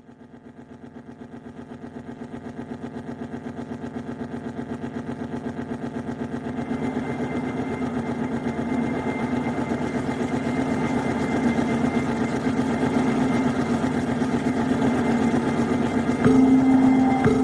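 Harsh electronic noise music: a dense, engine-like droning buzz with a fast pulse fades in from silence and builds steadily, jumping louder near the end.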